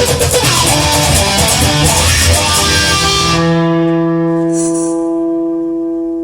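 Instrumental passage of a rock song led by guitar, with no singing. About halfway in, the busy playing stops on a single held chord that rings on.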